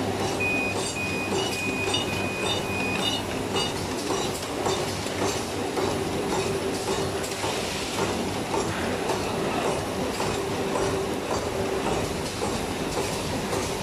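HIGH SEA HSDP-400 bag-on-roll making machine running: a steady mechanical hum with a fast, regular clatter from its sealing, perforating and rewinding mechanisms. In the first few seconds a string of short, high-pitched tones sounds over it.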